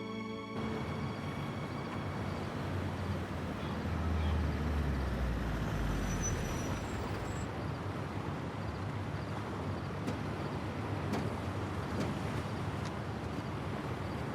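Steady noisy ambience of wind and sea, with a low rumble that swells a few seconds in and fades again; the tail of soft background music cuts off in the first second.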